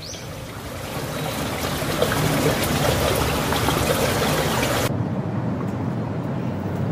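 A shallow rocky stream trickling and flowing. About five seconds in it cuts off abruptly, giving way to a duller, steadier outdoor noise.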